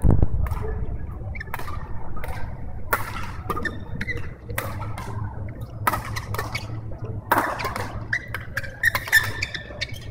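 Badminton being played: irregular sharp racket strikes on the shuttlecock and squeaks of shoes on the court floor, over a steady low hum. A loud thump comes right at the start.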